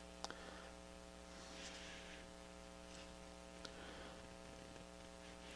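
Near silence: a steady low electrical hum, with a few faint small clicks.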